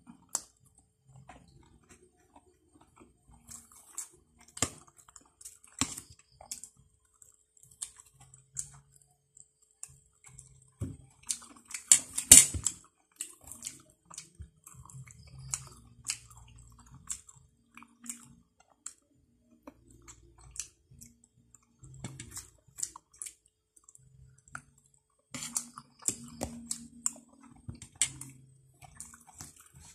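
A person chewing and eating rice and fried chicken close to the microphone, with scattered small clicks and taps. A brief, louder noise comes about twelve seconds in.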